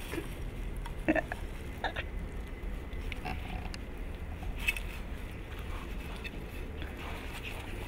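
Cavalier King Charles spaniel puppies making a few short squeaks and grunts over a steady low rumble.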